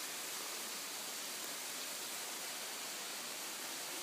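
Steady, even rushing of falling water from the nearby waterfall, a faint wash of hiss with no separate splashes.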